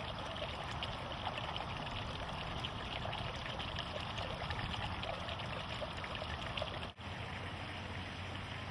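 Steady running-water background, like a stream or trickle, with scattered faint ticks. It cuts out briefly about seven seconds in and then resumes. No roar is heard.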